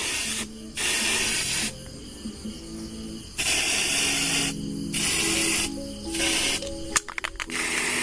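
Aerosol spray-paint can spraying in several short bursts of about a second each, with pauses between, over background music.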